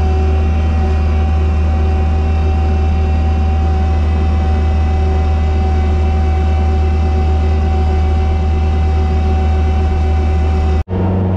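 Engine of a sidewalk snow-clearing machine running steadily, heard from inside its cab, with a steady whine over the low drone. Near the end the sound cuts out for an instant and comes back changed.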